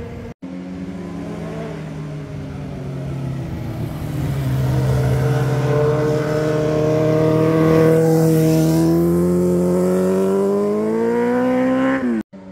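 Sport motorcycle engines running as the bikes lean through a hairpin bend and pass close by; the engine note holds steady, then rises as they accelerate out of the curve. The sound cuts off abruptly just after the start and again near the end.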